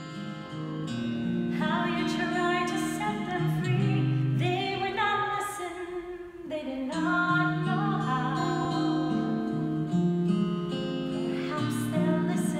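A woman singing a held, wavering melody with acoustic guitar accompaniment, the sound dipping briefly about halfway through.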